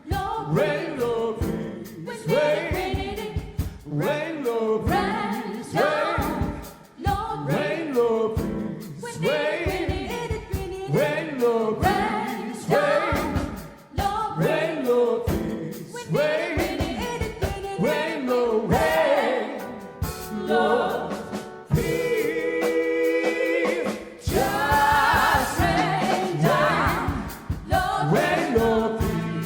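Gospel vocal group singing live, the voices bending and gliding through wordless runs, with a chord held for a few seconds about twenty seconds in before the singing moves on again.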